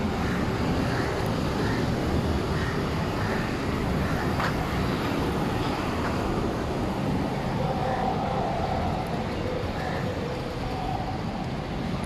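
Steady street traffic noise from motor vehicles, the engines of motor scooters, auto-rickshaws and cars passing on the road, with faint voices now and then.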